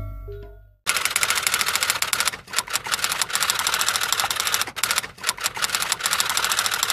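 Typing sound effect: a fast run of keystroke clicks, pausing briefly a few times, after a musical tail that dies away about a second in.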